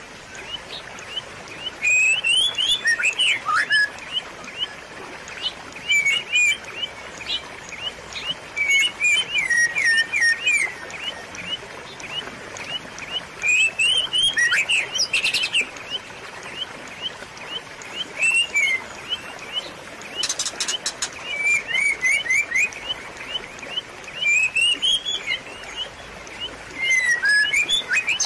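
Small birds chirping in short bursts of quick, high notes every couple of seconds, over a steady hiss of gently running water. A few sharp clicks come near the middle.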